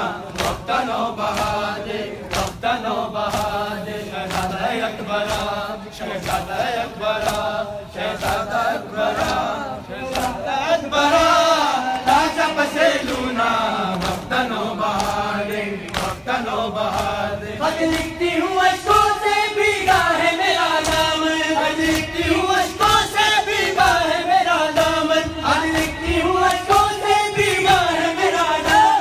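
A crowd of men chanting a noha (Shia lament) in unison, with rhythmic chest-beating slaps (matam) keeping the beat. The chanting gets louder and higher about two-thirds of the way through.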